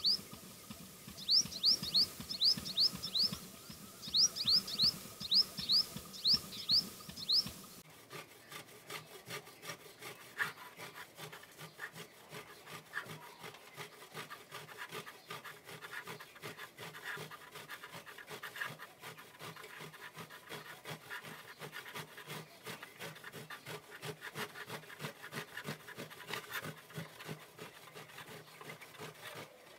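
A sunbird calls in groups of short rising chirps. About eight seconds in, this gives way to khoya being grated on a stainless-steel hand grater over a steel tray: a steady run of quick rasping strokes that lasts to the end.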